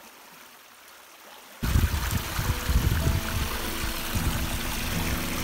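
Small mountain stream spilling over rock into a pool. A faint hiss at first, then about one and a half seconds in the sound jumps suddenly to loud rushing, splashing water.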